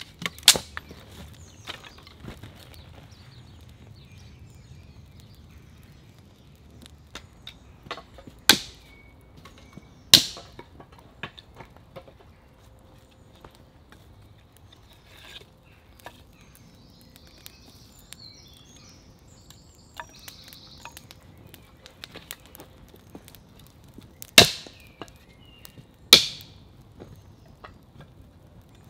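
Dry sticks snapped by hand: five loud, sharp cracks, spread out, two close together near the middle and two near the end. Between them a small wood fire crackles faintly with light ticks and pops.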